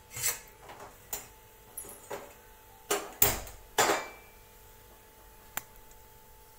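Steel kitchen utensils clattering on a counter, then a steel pot knocked down onto the grate of a gas stove, the loudest knocks about three to four seconds in. A single sharp click comes near the end, over a faint steady hum.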